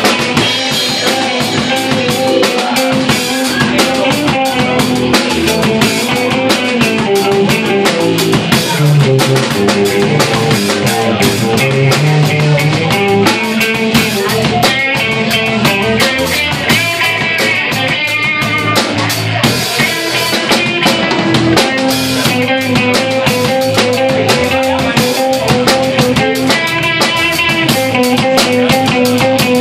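Live band playing a rock number on electric guitar and bass guitar over a drum kit, with steady drum hits.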